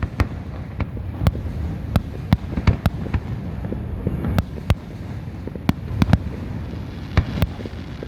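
Fireworks going off: a rapid, irregular string of sharp bangs and cracks, several a second, over a continuous low rumble of more distant bursts.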